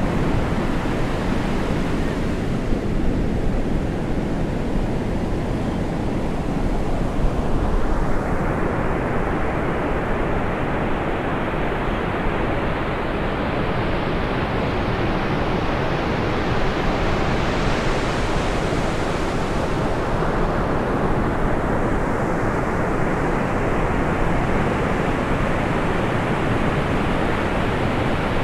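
Ocean surf breaking and washing in steadily, hissing brighter as a wave breaks about eight seconds in and again around eighteen seconds.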